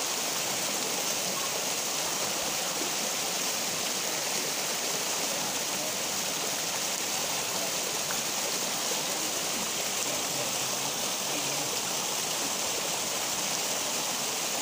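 Water of a small waterfall rushing and splashing steadily over rocks, a continuous even hiss.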